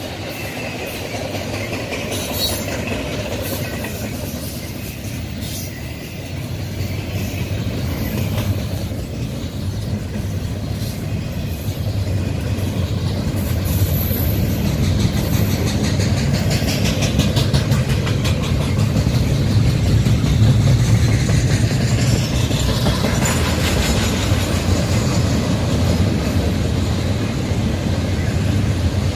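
Double-stack intermodal well cars rolling past close by: a steady rumble of steel wheels on rail that builds toward the middle, with clicks of wheels over rail joints and a brief high wheel squeal about halfway through.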